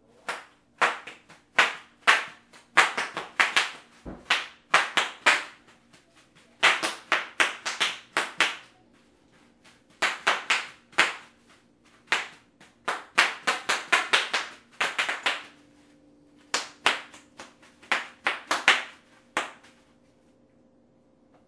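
Bubble wrap popping under a toddler's stamping feet: sharp pops in rapid, irregular flurries, stopping near the end.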